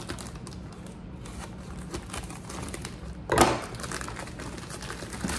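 Plastic poly mailer bag crinkling and rustling as it is cut open with scissors and handled, with one louder burst of crackling plastic about three and a half seconds in.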